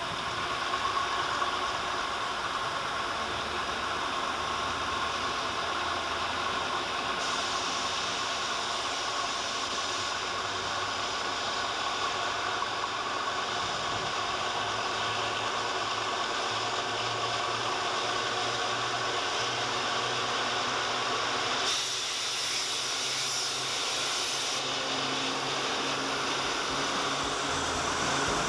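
A pair of Cne diesel-electric locomotives working in multiple, their diesel engines running as they haul flat wagons through a station. A steady hum and hiss, with a sharper hiss for a few seconds about three quarters of the way through.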